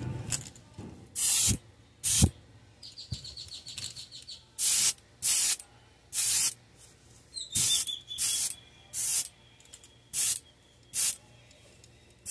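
Airbrush spraying a thinned pearl-white shimmer coat onto a swimbait in about ten short bursts of hiss, with brief quiet gaps between passes.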